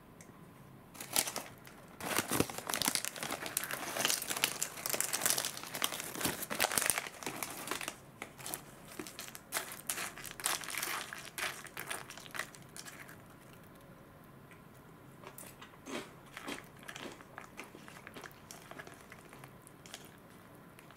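Foil inner bag of Ottotto snack crackers crinkling, dense and continuous for several seconds as the snacks are emptied into a cup of ramen. After that it thins to scattered light clicks and rustles, then only occasional faint ticks.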